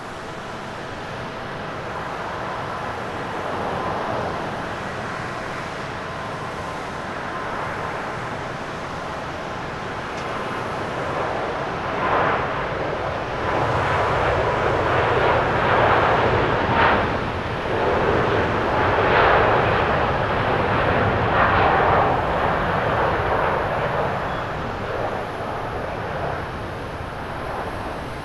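Boeing 777 twin-engine jet airliner taking off at full thrust. A steady jet-engine whine and rush grows much louder about twelve seconds in, loudest and fluctuating as the aircraft rolls past, then eases as it lifts off and climbs away.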